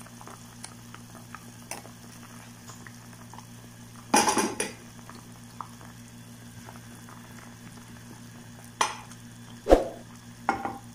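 Chicken-feet soup boiling in a non-stick saucepan, with a steady bubbling. A spoon knocks and scrapes against the pan, loudest once about four seconds in and again a few times near the end as a wooden spoon stirs in the tomato paste.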